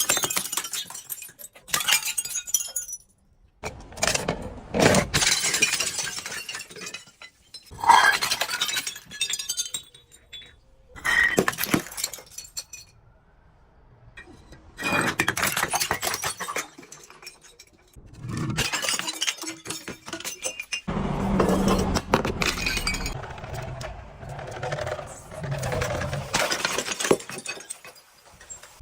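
Glass bottles breaking and being crushed, shards crunching and clinking in several separate bouts with short pauses between.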